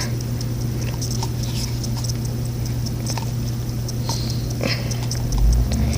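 A plastic lotion bottle being squeezed, giving small squeaks and clicks that stop and start, over a steady low hum.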